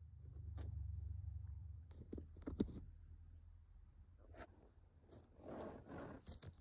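Faint close-up handling noise: a low rumble for the first two seconds, then a few small sharp clicks and a short scratchy rustle near the end, from a wooden clothespin claw and small junk being moved over quilted cloth.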